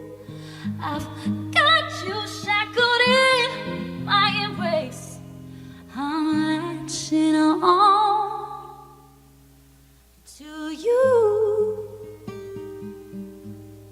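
A singer's wordless vocal runs, with vibrato, over a guitar accompaniment. The voice drops out for a moment about two-thirds of the way through, then returns with one more phrase that trails off over the closing chords.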